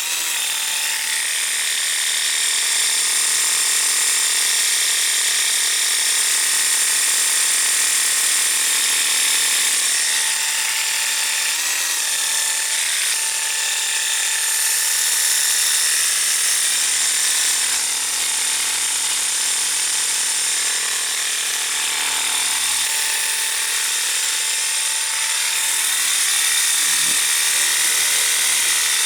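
Cordless 20-volt lithium-ion pressure washer running steadily, its electric pump motor whining under a high hiss.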